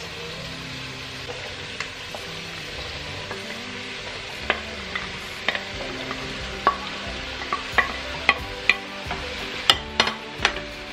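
Diced peppers and onions sizzling in a pot while a wooden spoon stirs them, and diced courgette is pushed off a plate into the pot. Through the second half come sharp knocks of the wooden spoon against the plate and pot, several close together near the end.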